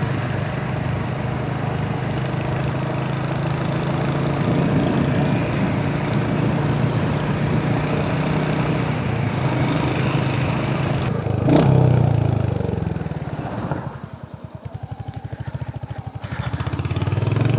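Royal Enfield Hunter 350's single-cylinder engine running under way, with road noise. About two-thirds of the way through, the level drops and a slow, even thumping of the engine at low revs comes through, then it picks up again near the end.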